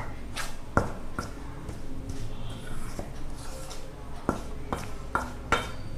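A metal spoon stirring a dry flour and spice mix in a stainless steel bowl, with a soft scraping and sharp clinks of the spoon against the bowl, coming about twice a second near the end.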